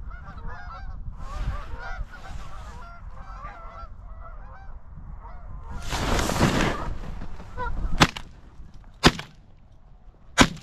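A flock of geese honking and cackling, then a loud rush of noise about six seconds in as the layout blind's doors are thrown open, followed by three shotgun blasts about a second apart near the end.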